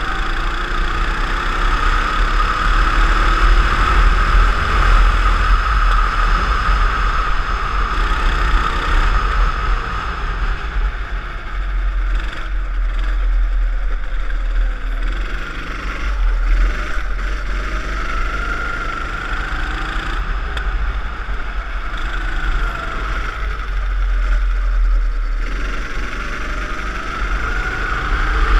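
Go-kart engine running hard, heard from a camera mounted on the kart, its pitch rising and falling with the throttle through the corners. A heavy low rumble of wind buffeting on the microphone runs underneath.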